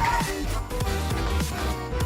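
Background music with steady bass and instrumental notes.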